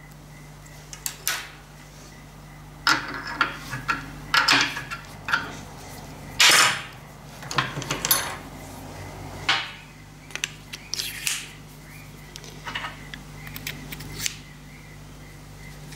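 Irregular metallic clicks, clinks and knocks of a collet chuck and drill bit being handled, adjusted in a steel bench vise and fitted into a drill bit grinder's holder, the sharpest knock about six and a half seconds in, over a steady low hum.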